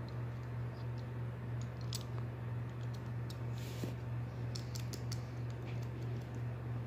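Scattered light clicks and taps at uneven intervals over a steady low hum.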